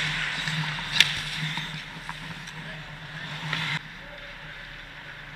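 Ice hockey skate blades scraping and shuffling on the ice close by, with a sharp click about a second in; the scraping cuts off abruptly a little before the end, leaving a steady low hum.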